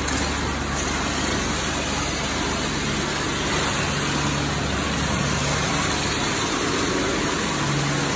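High-pressure foam lance spraying a truck at a wash: a steady hiss of spray over a steady low hum.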